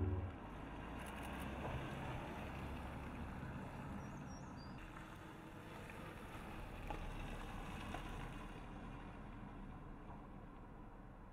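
Lexus NX 200t F Sport crossover driving past, a faint steady engine and tyre noise that swells a little and fades away near the end as the car moves off.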